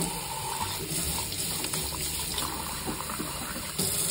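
Hot water running from a kitchen faucet into a milk frother jug held under the stream and splashing into a stainless steel sink, rinsing the jug out. A steady rush, a little louder near the end.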